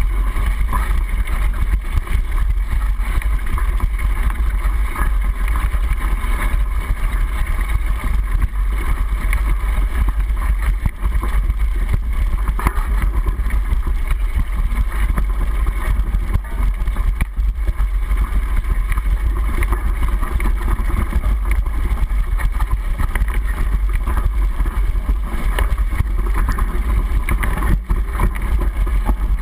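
Mountain bike rolling over a rough dirt forest trail: a steady low rumble with constant small rattles and knocks from the bike jolting over the ground, muffled by a sealed waterproof camera housing on the handlebar.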